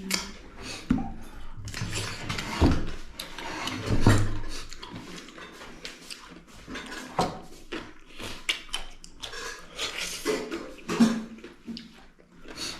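Close-up eating sounds: wet chewing and mouth smacking of a chicken-and-rice meal eaten by hand, with scattered short clicks and knocks of food being handled on a plate.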